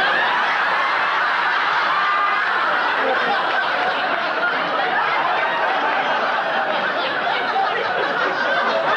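Studio audience laughing: a long, loud laugh from a crowd that breaks out suddenly and keeps going without a break.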